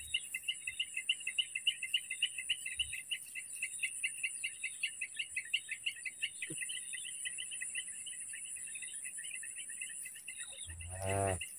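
Insects, crickets, chirping in a fast, even pulsing rhythm over a steady high-pitched insect trill. A brief voice sounds near the end.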